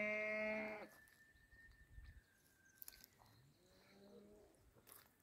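A cow mooing: one long, loud call that ends about a second in, then a second, fainter moo near the end.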